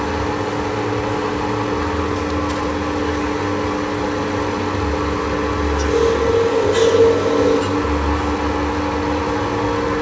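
Electric motor and stripping head of a 680B enamelled-wire stripping machine running with a steady hum. About six seconds in, a louder, higher tone comes in for a second or two while a wire end is held in the stripping head.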